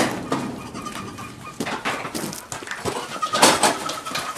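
Goats bleating, with a sudden knock at the start and then irregular clattering as a dairy goat scrambles up onto a milking stand.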